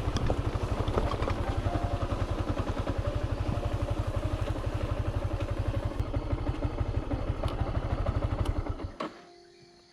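Small motorcycle engine running, a steady rapid low putter with some rattle, cutting off abruptly near the end.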